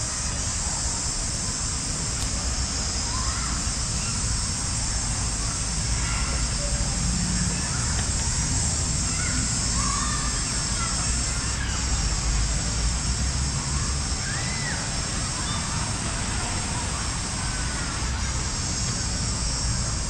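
Steady outdoor rushing hiss with a low rumble beneath it, and short bird chirps scattered throughout.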